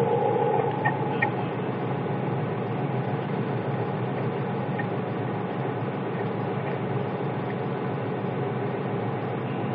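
Train running along the rails, heard from on board: a steady, even rumble of engine and track noise. A faint tone dies away early, and a couple of light clicks come about a second in.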